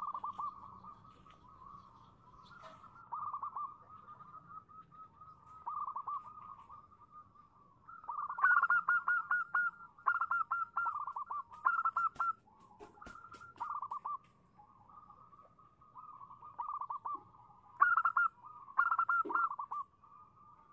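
Zebra dove (perkutut) giving its rapid, trilled cooing calls in short repeated phrases, with a louder run of calls from about the middle and again near the end. The call is offered as a female's call that draws males to answer.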